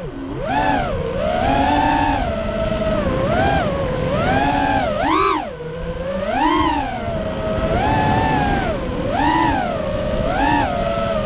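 FPV quadcopter's brushless motors and propellers whining, the pitch rising and falling about once a second as the throttle is punched and eased through banking turns.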